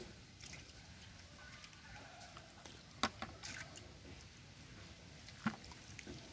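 Small metal cup scooping muddy water out of a narrow hole in wet mud: quiet slops and splashes, with a sharp clink or knock about three seconds in and another near the end.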